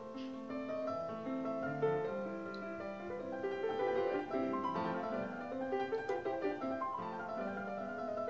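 Background instrumental music: a melody of short pitched notes.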